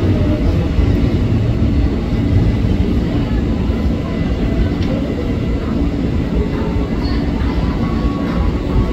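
Container freight train's wagons rolling away over the rails, a steady low rumble of wheels on track.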